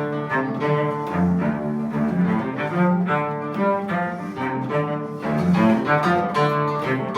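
Instrumental background music with a melodic line of low string notes that change in a regular rhythm.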